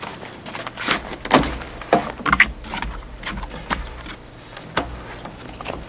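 Handling noise while pitching an A-frame tent: scattered knocks and small metallic clicks and rattles from the tent's metal frame and hooks, mixed with rubber clogs stepping on a wooden deck.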